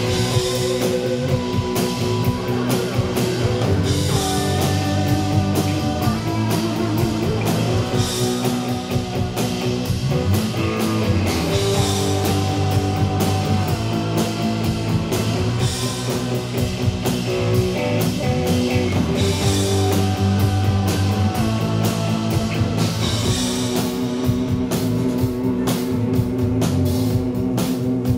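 Live rock band playing: electric guitars, bass and a drum kit, with a held melodic line over a steady beat.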